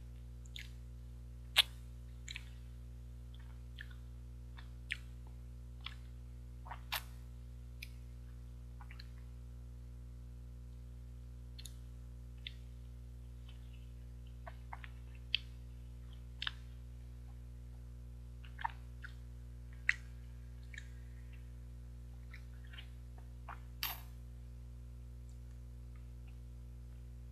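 Close-miked mouth sounds of eating an injeolmi ice cream bar: scattered short wet clicks and smacks of lips and tongue as it is bitten and sucked, at irregular intervals. A steady low hum runs underneath.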